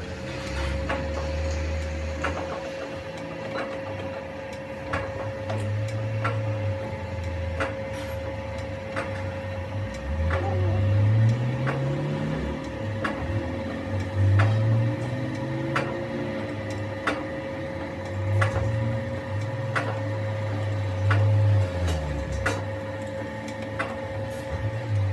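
Metal lathe running with a steady whine and a low hum that shifts and rises in pitch at times, with sharp clicks repeating a little more than once a second.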